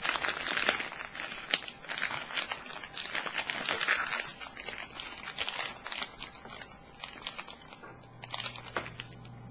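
A candy wrapper crinkling and crackling as it is handled. It is busiest over the first six seconds, then thins to a few scattered crackles.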